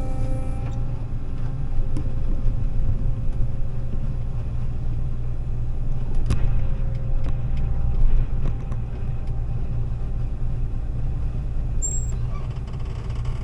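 John Deere combine running steadily, a low engine drone. A faint higher whine fades out within the first second, and a few sharp clicks and knocks come around six seconds in.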